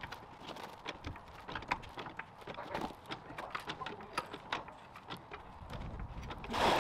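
Trolley jack being pumped to lift a car: an irregular string of small metallic clicks and clanks from the handle and lifting arm. A short, louder rush of noise comes near the end.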